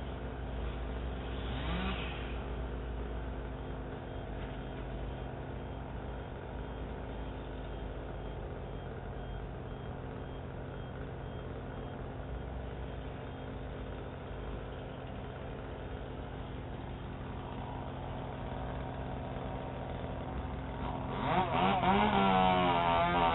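Steady low mechanical hum with a low rumble, like an engine running at a distance, through a doorbell camera's narrow-band microphone. About 21 s in, a louder wavering pitched sound comes in.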